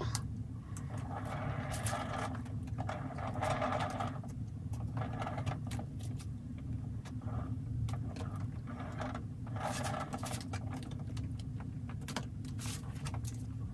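Plastic spreader scraping wet base-coat paint across a stretched canvas in repeated strokes of about a second each, with small clicks. A steady low hum runs underneath.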